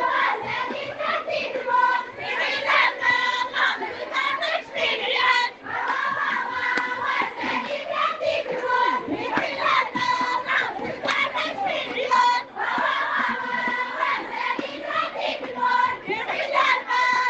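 A crowd of voices singing and chanting together in one dense, continuous mass, with repeated held high notes.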